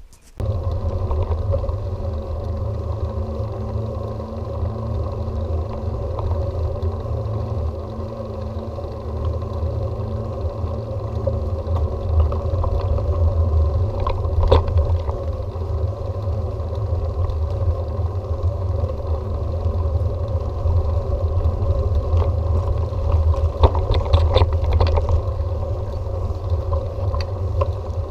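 Steady low rumble of riding a bicycle along a road, with a few brief clattering knocks about halfway through and again in the last third.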